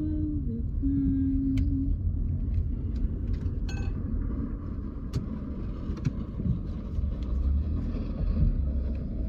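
Road noise inside a moving car: a steady low rumble, with a short held note about a second in and a few faint clicks.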